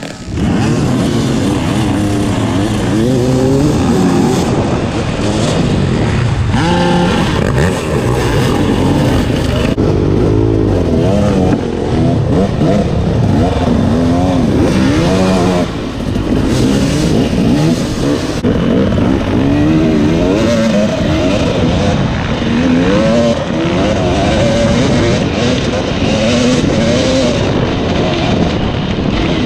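Husqvarna TX 300 single-cylinder two-stroke dirt bike engine being ridden hard, its note rising and falling constantly as the throttle is worked.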